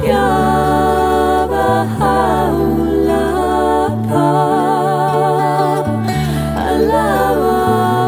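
Two women singing a slow devotional song in duet, with wavering held notes, over acoustic guitar and bouzouki; the low bass notes change about every two seconds.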